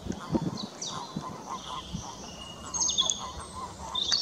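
Wild songbirds singing, with high sweeping notes and short trills, loudest about three seconds in. Beneath them runs a faint string of short, lower chirps, and a few short low thuds sound near the start.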